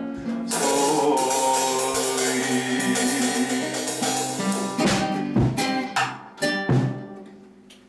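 Acoustic guitar strummed under a held melody line, finishing with a few sharp strummed chords between about five and seven seconds in; the last chord rings and fades as the song ends.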